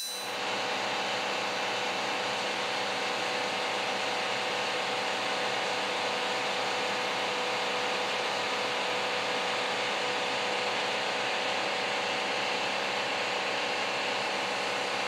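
Pneumatic die grinder with a paint-stripping disc running steadily on the bare steel hood: a constant whirring hiss with a steady whine.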